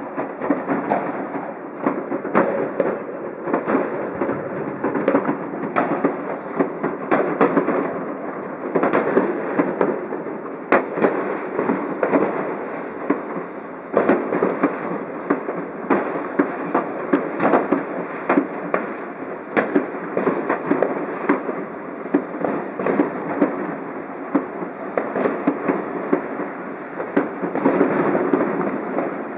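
Many fireworks and firecrackers going off at once: sharp bangs and cracks in quick, irregular succession over a continuous crackling haze.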